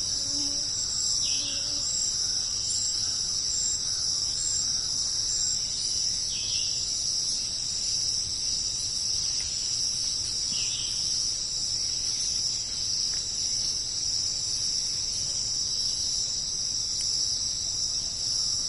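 A dense, steady chorus of insects trilling without a break. A few brief falling calls stand out about a second, six seconds and ten seconds in.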